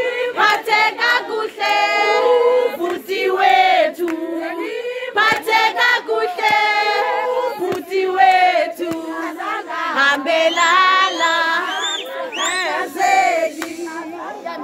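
A group of women singing together loudly in chorus, several voices overlapping. In the second half short high cries rise and fall over the singing, a few in quick succession.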